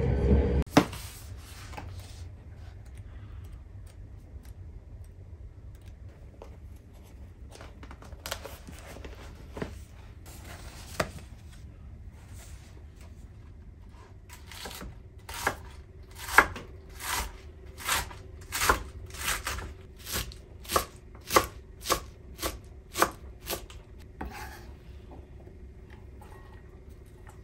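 Kitchen knife chopping cabbage on a round wooden cutting board: a run of even chops, about one and a half a second, through the second half, after a few scattered knocks and rustles.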